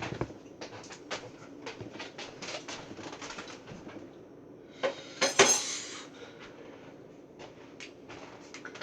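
Dishes and utensils clinking and knocking, with a louder clatter of dishes about five seconds in.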